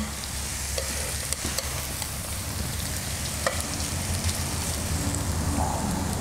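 Pork belly slices sizzling steadily on a hot tabletop grill plate, with a few light clicks of chopsticks touching the plate.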